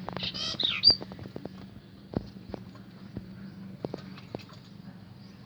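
Lovebirds giving a quick run of harsh, high chirps in the first second, followed by scattered sharp clicks and taps, over a faint low steady hum.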